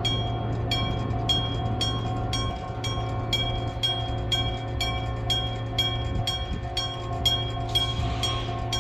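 Electric-bell (denshō-type) railway crossing bell striking repeatedly, about two strikes a second, each strike ringing out over a steady low hum. A short rush of noise cuts across the ringing about eight seconds in.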